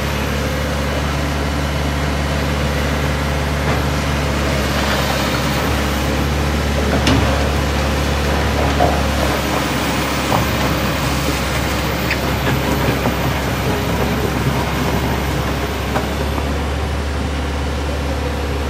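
Truck engines running steadily, with a few short knocks.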